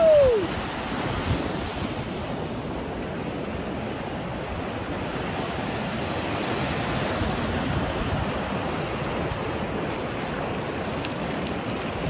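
Ocean surf breaking and washing in the shallows, a steady rushing with wind buffeting the microphone. At the very start, a short tone falls in pitch.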